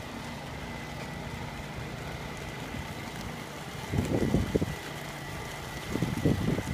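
An engine running steadily with a low hum, interrupted about four and six seconds in by two short bursts of wind buffeting the microphone.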